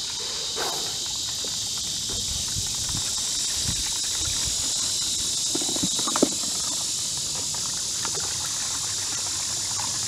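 Steady outdoor insect chorus, a continuous high-pitched buzz, with a few faint scattered knocks in the middle, the sharpest about six seconds in.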